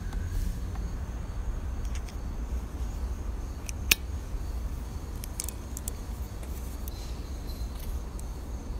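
A few light clicks and clinks of grooming tools being handled in a plastic tray, the loudest a single sharp click about four seconds in as the nail clipper is handled, over a low steady rumble.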